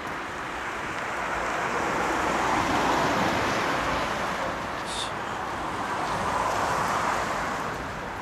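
Road traffic passing on a wet street: tyre and engine noise of cars and a van going by, swelling twice as vehicles pass.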